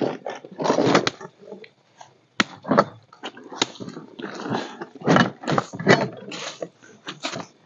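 Irregular rustling and crinkling of nylon backpacks and a tarp groundsheet being handled, with a few sharp knocks in between.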